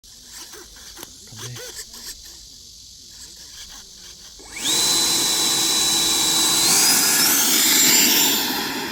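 Electric ducted fan of a 70 mm FMS F/A-18 RC jet spooling up suddenly about halfway in to a loud, steady high whine, which steps up in pitch as the throttle is advanced and then fades near the end. A few faint clicks come before it.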